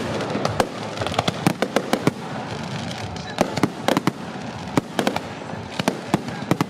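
Aerial fireworks display: shells bursting overhead in irregular clusters of sharp bangs and crackles.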